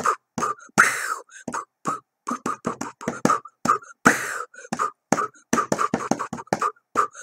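Vocal beatboxing: a quick, busy run of short mouth-made kicks and clicks, with a longer hissing snare-like burst about a second in and again about four seconds in.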